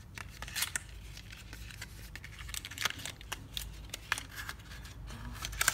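Light clicks, taps and rustles of cardboard and paper being handled as the white cardboard insert of a smartphone box is lifted out, with a sharper click near the end.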